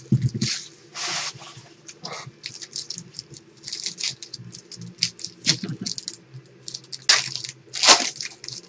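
Plastic trading-card pack wrapper crinkling and rustling in the hands as it is opened, in a run of short crackles and clicks, loudest near the end. A low knock comes right at the start.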